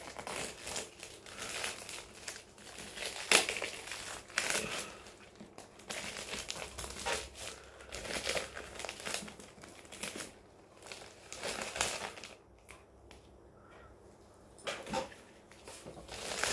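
Plastic shrink-wrap being peeled off a book, crinkling and crackling in irregular bursts. It goes quieter for a few seconds about two-thirds of the way through, then crinkles again near the end.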